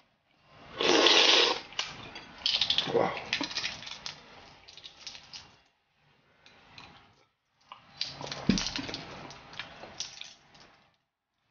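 Close-up eating sounds: crackly clicking and crinkling of a balut eggshell being cracked and peeled by hand, in two runs, with a louder rushing noise about a second in.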